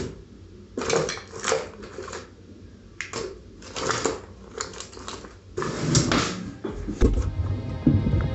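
A hand rummaging through a cluttered desk drawer: irregular rustling of packets and papers and clattering of small objects, in short spells, with a few heavier knocks near the end.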